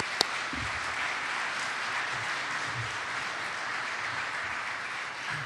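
Audience applauding steadily, with one sharp clap close to the microphone at the start. The applause fades away near the end.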